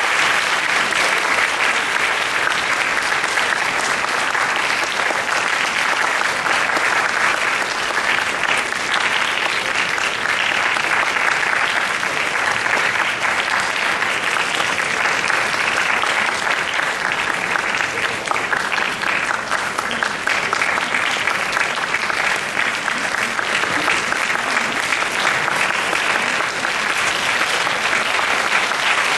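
Audience applauding: dense, steady clapping filling a concert hall.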